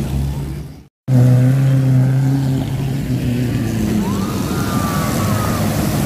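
Off-road jeep engines running as the jeeps drive through a shallow river, over a steady hiss of splashing water. The sound cuts out for a moment about a second in, then the engine comes straight back and runs steadily.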